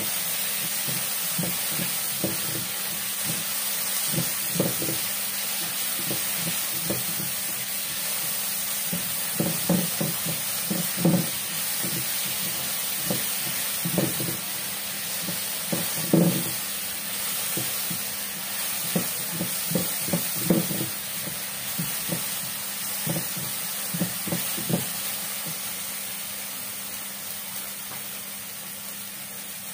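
Chopped tomatoes sizzling in a nonstick frying pan while a spatula stirs them, knocking and scraping against the pan at irregular moments, most often in the middle stretch. The sizzle grows quieter near the end.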